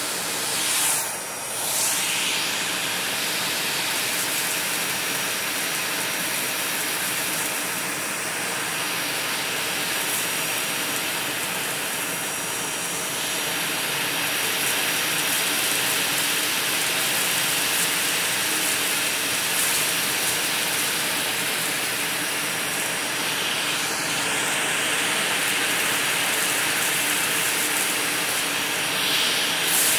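Vacuum cleaner with a bristle nozzle running steadily on carpet: a continuous rushing hiss with a thin high whine, dipping briefly about a second in.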